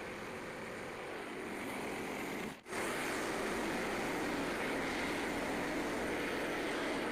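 Frontier OS27 portable band sawmill running steadily. About two and a half seconds in the sound drops out for a moment and comes back a little louder.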